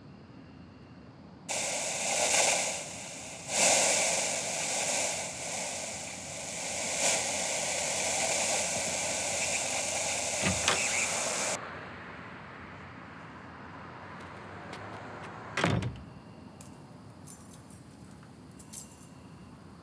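A loud hiss that starts suddenly, swells a few times and cuts off abruptly after about ten seconds. Then a single sharp knock and a few faint clicks.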